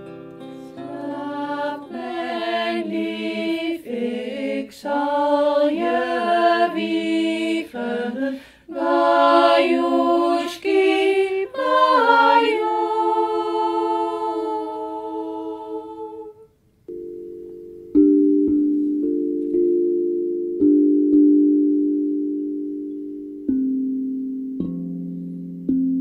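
A voice sings a slow melody. It stops about two-thirds of the way in, and a steel tongue drum is struck with mallets: about six low notes, each ringing and slowly dying away.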